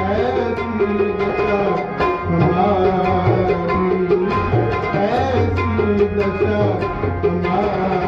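Music with tabla drumming under a winding melody line.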